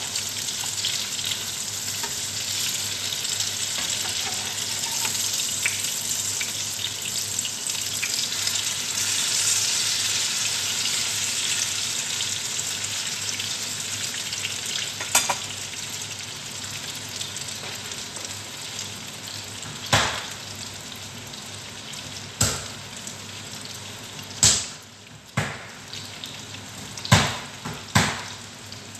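Eggplant omelettes (tortang talong) frying in hot oil in a pan, a steady sizzle that eases off in the second half. From about halfway in come several sharp clicks, most of them near the end: metal utensils knocking against the pan.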